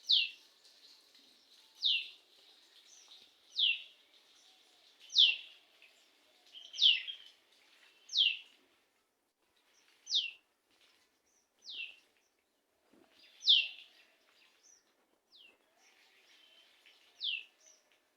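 Common tailorbird calling: one sharp downslurred note repeated about every one and a half to two seconds, eleven or so times.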